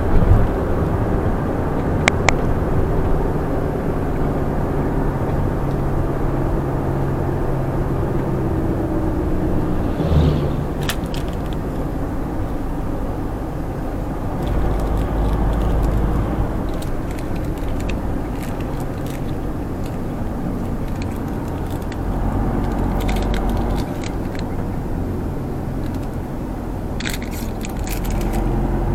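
Vehicle driving along a town road: a steady low engine drone with road and wind noise, broken by a few short sharp clicks and rattles.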